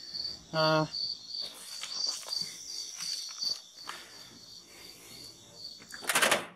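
Crickets chirping in a steady, even pulse, with scattered light clicks and rustles and a short, louder rustle near the end.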